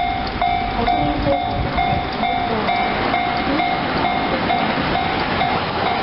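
Japanese railway level-crossing alarm ringing its repeated electronic 'kan-kan' tone about twice a second. Near the end the rising running noise of a Yokosuka Line commuter train passing through the crossing joins it.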